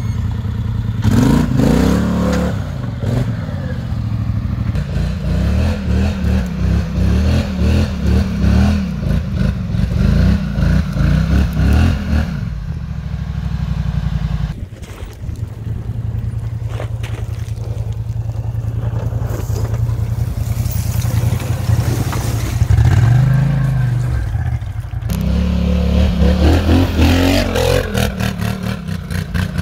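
ATV engines revving in repeated bursts under load, pitch rising and falling with the throttle as the quads climb steep dirt slopes, with tyres scraping and clattering over dirt and branches. The engine sound changes abruptly twice as one machine gives way to another.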